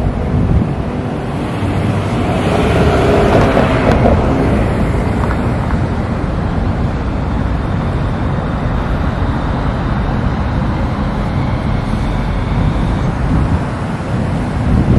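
Road traffic and wind rumbling on the microphone, with a vehicle swelling past about two to four seconds in.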